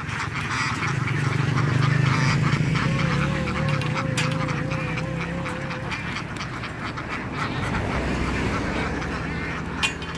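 A large flock of domestic laying ducks quacking continuously in a dense, overlapping chatter. A low engine hum runs underneath during the first half.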